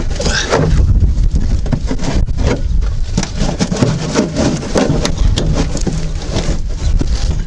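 Plastic wheel-arch liner on a Lada Niva scraping and crackling in a run of short clicks as it is worked loose from the arch, where it has stuck to the anti-corrosion coating. A steady low rumble of wind on the microphone runs underneath.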